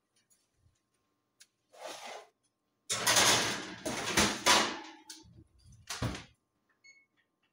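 Kitchen oven being shut: a loud scraping noise lasting about two seconds, then a short low thump about six seconds in as the door closes.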